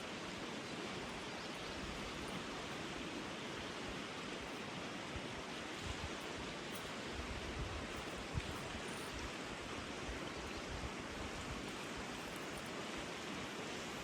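Mountain stream flowing: a steady, even rush of water, with a faint brief tick a little past halfway.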